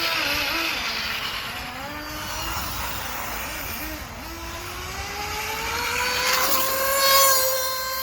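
RC race cars' motors whining as they race, the pitch wavering with the throttle; about halfway through one car's whine climbs steadily as it accelerates, loudest near the end.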